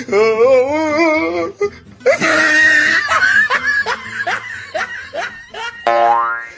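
Dubbed meme laughter sound effect: a wavering, warbling laugh, then a loud burst of laughing broken into short falling 'ha' syllables, over music. A springy boing effect starts near the end.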